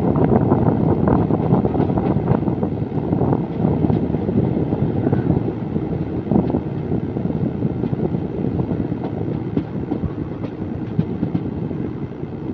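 Passenger train coach running along the track, heard at its open door: a dense rumble of wheels on rails with scattered sharp clicks from rail joints. The noise eases gradually toward the end.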